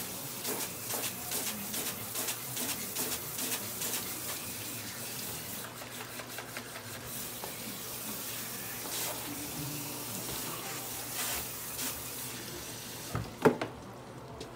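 Water from a salon shampoo sink running and spattering over a child's hair as the perm solution is rinsed out. Near the end there is one sharp knock and the running water stops.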